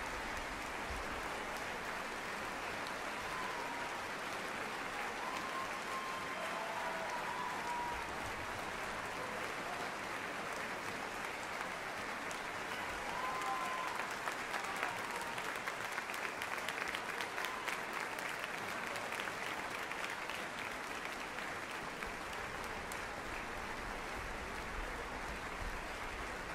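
Large theatre audience applauding steadily: an ovation after the performance, with individual claps standing out more sharply a little past the middle.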